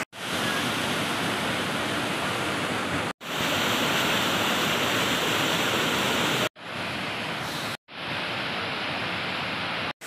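Waterfall rushing over rock: a steady, dense noise of falling and churning water, broken by three short silent gaps where the shots are cut.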